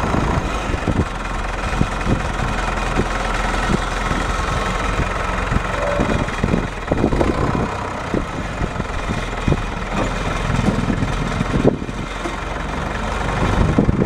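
Case 680CK backhoe's four-cylinder diesel engine running steadily, with frequent irregular knocks and clanks.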